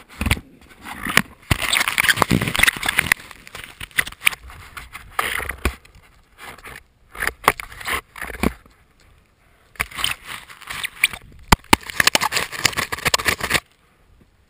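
Snow spraying and scraping against the camera as it plows through deep snow during a steep ski descent, in loud irregular rushes with sharp knocks among them. The rushing stops abruptly near the end.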